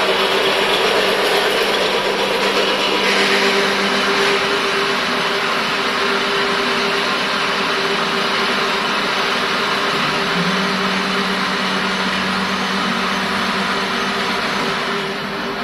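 Hydraulic drilling machine running: a steady hum with a loud, even hiss of machine noise over it. A second, lower hum joins about two-thirds of the way through, and the sound eases off near the end.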